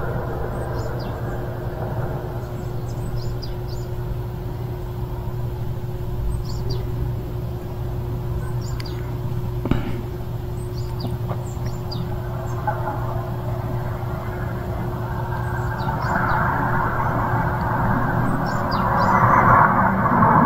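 Outdoor street ambience: a steady low hum with small birds chirping faintly now and then, and a broad rushing noise that swells over the last few seconds, like a vehicle drawing near.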